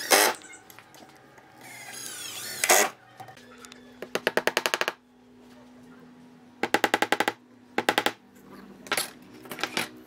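Cordless drill driving screws into pine boards, with a short whir that rises in pitch before one loud burst. Then rapid runs of sharp knocks, about ten a second, come in short bursts with gaps between.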